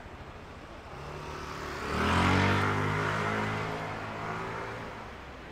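A motor vehicle passing close by: its engine note swells from about a second in, is loudest a little after two seconds, and fades away before the end.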